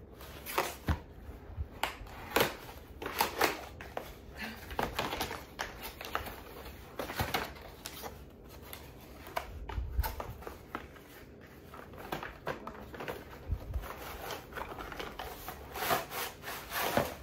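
Irregular rustling and crinkling with small knocks and clicks: flowers and their packaging being handled.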